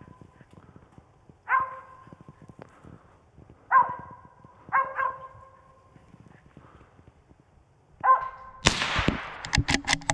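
Mountain feist barking at a treed squirrel: five separate barks spaced a second or more apart. About 8.6 seconds in comes a single sharp gunshot, followed by a short spell of clattering and rustling.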